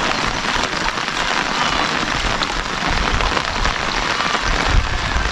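Steady, heavy rain falling, a dense even patter of drops, with a low rumble rising briefly near the end.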